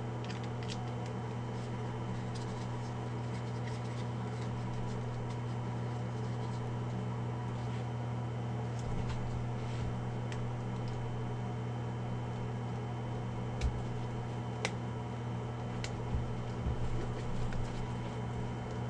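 Steady low electrical hum, with scattered small clicks and a few soft knocks as handheld radios and cables are handled in a hard plastic case.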